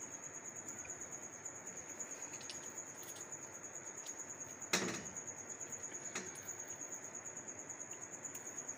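Wet cheese curd squeezed by hand over a pot of whey, with faint drips and squelches and one louder splash just under five seconds in. A steady high-pitched tone runs underneath.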